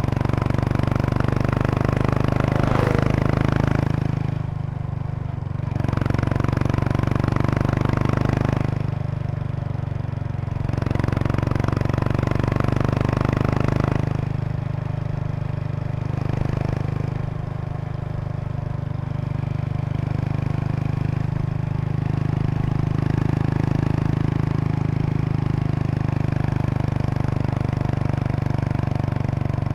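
Exhaust of a 2003 Kawasaki Estrella RS, a 250 cc air-cooled single-cylinder motorcycle fitted with a Yamato muffler, heard while riding at a relaxed pace. It runs steadily, easing off the throttle several times and pulling again in between.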